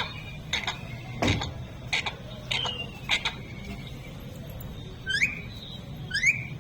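Pet parrot giving a run of short, sharp squawks, the loudest about a second in, then two quick rising whistled chirps near the end, over a low steady background hum.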